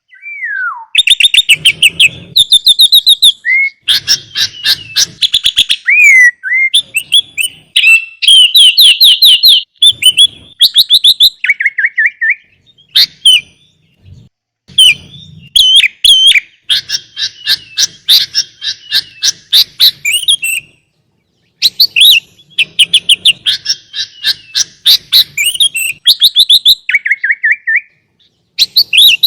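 Sooty-headed bulbul (kutilang) singing a rich, varied song: fast trills of rapidly repeated notes, bright chirps and a few falling whistled glides, in loud phrases broken by short pauses.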